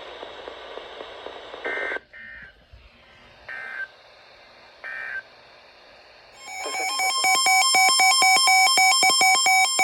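Emergency Alert System broadcast tones: a few short bursts of warbling digital data tones (the end-of-message code), then, about six and a half seconds in, a loud rapidly pulsing electronic alert tone that marks the start of a new alert.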